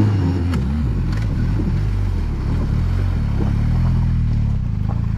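Motorcycle engine running at low revs, its pitch wandering a little before it settles into a steady, pulsing idle.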